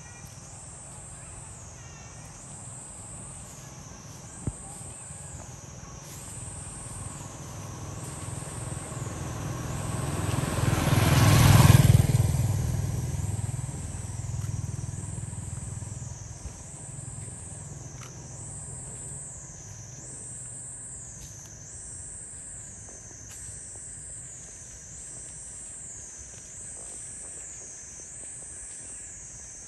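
A motorbike passes by, growing louder to a peak about twelve seconds in and then fading away. Throughout, insects keep up a high pulsing buzz, about one pulse a second.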